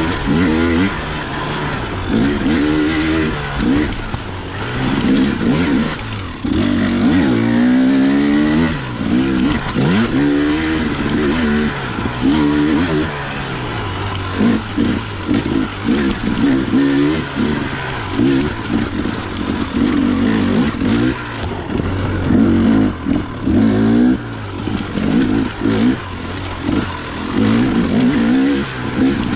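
Two-stroke dirt bike engine being ridden hard, revving up and down over and over as the throttle is opened and closed, its pitch rising and falling every second or two.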